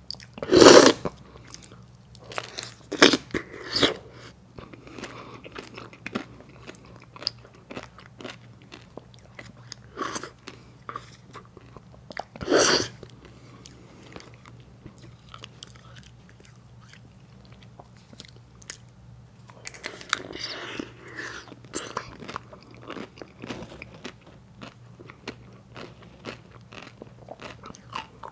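Close-miked eating of dipped soft-serve ice cream cones: sharp crunching bites through the hard coloured coating and cone, with wet chewing between. The loudest bites come in the first few seconds and again about halfway through.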